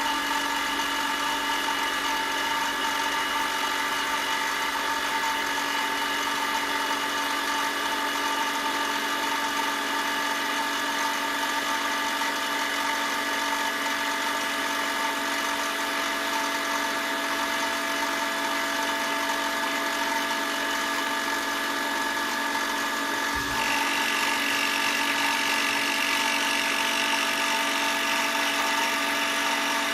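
A power tool's motor running steadily at one pitch. About two-thirds of the way in there is a short knock, and the higher hiss grows louder after it.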